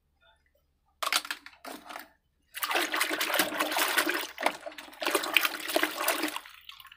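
Soapy water in a basin sloshing and splashing as a hand swishes a toy through it: a couple of short splashes about a second in, then steady churning for about four seconds that dies down near the end.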